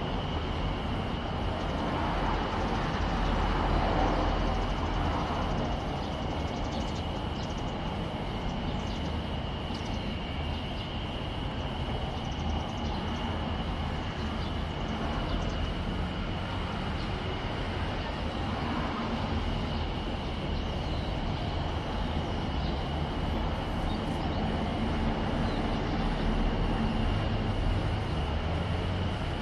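Steady distant engine rumble, swelling slightly at the start and near the end, with a steady high-pitched whine throughout.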